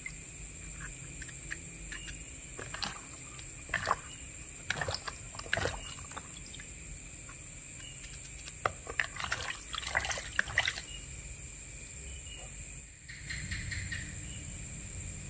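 A knife cutting through chunks of raw green eggplant over a basin of water, with short clicks and splashing and dripping of water as the wet pieces are handled.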